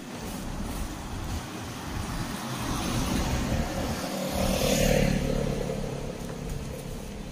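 A car passing on the street: its engine and tyre noise grow louder to a peak about four to five seconds in, then fade away.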